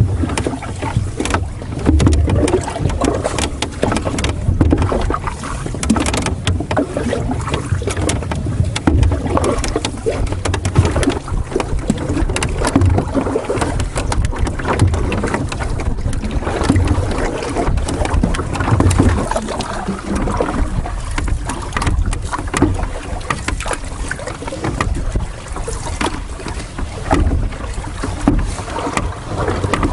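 Wind buffeting the microphone in uneven gusts, a heavy low rumble, over the splash and lap of lake water.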